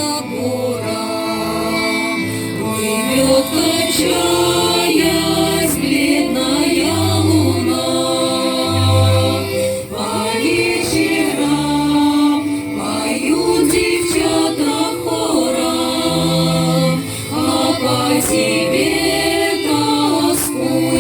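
A vocal ensemble singing a Russian song together, several voices holding and moving between long notes over low accompanying notes.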